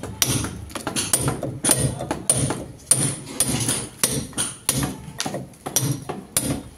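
Hand hammer striking a cold chisel, chipping a groove into a brick wall for electrical wiring. The blows come in a steady rhythm of about three a second.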